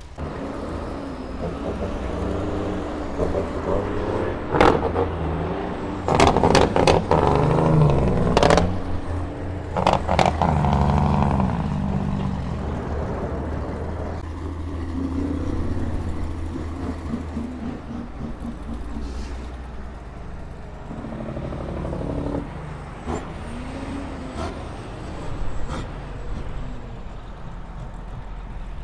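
Heavy diesel truck engine running and revving, with a burst of loud clattering and banging about six to ten seconds in.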